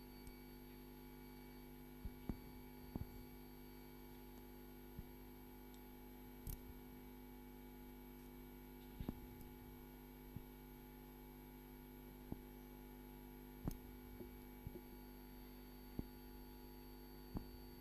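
Faint, steady mains hum with scattered light clicks from surgical instruments being handled, about a dozen in all.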